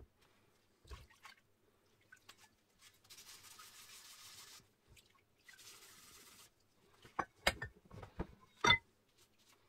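An iron pottery-wheel disc being handled and scrubbed in a plastic tub of liquid. There are two short stretches of hissing rubbing in the middle, then several sharp knocks and scrapes near the end as the disc is scrubbed with a pad.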